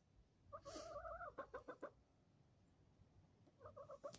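Domestic hen calling: one drawn-out note followed by a quick run of about five short clucks, then a few more short clucks near the end.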